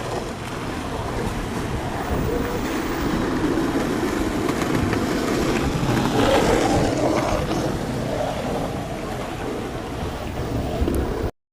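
A ship approaching: a low engine noise mixed with wind and water. It grows louder toward the middle, then eases slightly, and the sound cuts off suddenly near the end.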